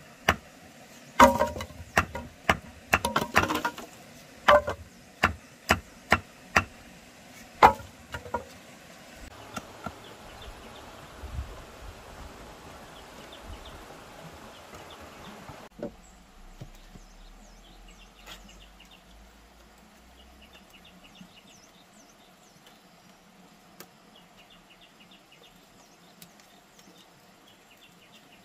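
Wooden poles being chopped: a run of sharp chopping strikes, irregular and about two a second, for the first eight seconds or so, followed by a rustling haze. About sixteen seconds in the sound changes abruptly to a quieter background with faint, repeated chirping.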